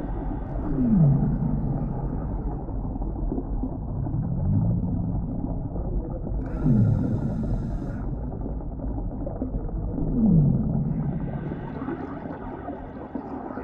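Underwater sea ambience sound effect: a steady low rumble with three deep moaning calls that fall in pitch, like whale calls, about a second in, near the middle and about ten seconds in. A brief hiss sounds near the middle.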